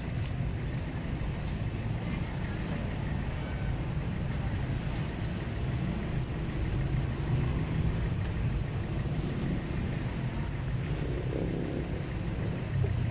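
Steady low rumble of outdoor background noise, with faint voices now and then.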